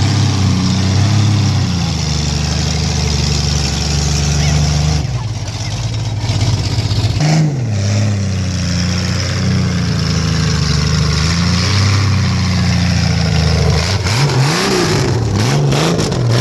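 Vehicle engine idling with a steady low hum, revved briefly about halfway through and then blipped in a few quick revs near the end.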